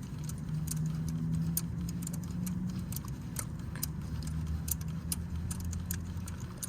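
Scattered metallic clicks and taps of a spark plug socket and extension as a spark plug is screwed down into the cylinder head, over a steady low hum.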